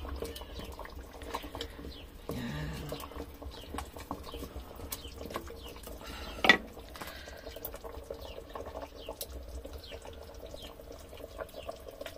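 A pot of beef stew in tomato sauce simmering, bubbling with many small pops. A single sharp knock about six and a half seconds in.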